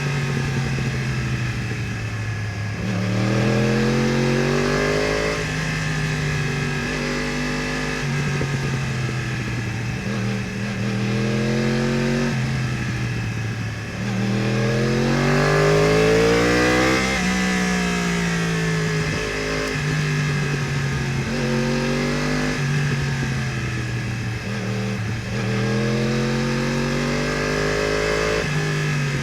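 2015 Yamaha R1's crossplane inline-four through a full Akrapovič exhaust and headers, accelerating hard through the gears: the pitch climbs again and again and drops at each shift, with spells of easing off between bursts.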